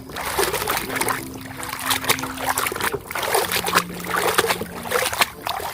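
Water splashing and sloshing in irregular bursts as muddy toys are scrubbed and rinsed by hand in a tub of water.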